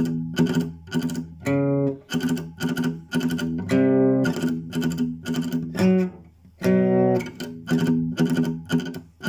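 Classical guitar played as a fast rock riff: short, choppy strums about four a second, broken now and then by a chord left ringing.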